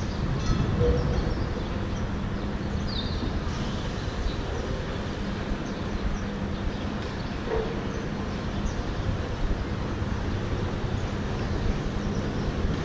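City street ambience: a steady low rumble of traffic with a faint hum, and a brief high chirp about three seconds in.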